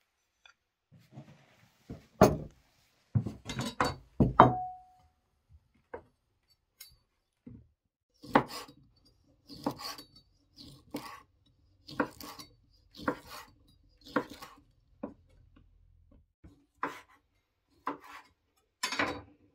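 A knife slicing a sausage on a wooden cutting board, each cut ending in a sharp knock on the board, about once a second through the second half. Earlier, a few louder knocks and a short clink of tableware being handled on the table.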